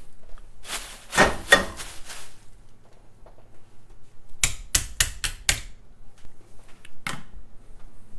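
Handling noises on a kitchen counter: a rustle about a second in, then a quick run of five short, sharp knocks and a single knock a little later.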